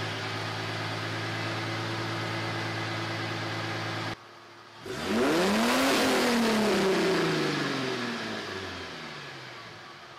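1996 Ford Mustang's 3.8 L 90-degree V6 running through its stock single 2-inch exhaust: a steady idle, then after a sudden break, one rev that climbs quickly and falls back slowly to idle.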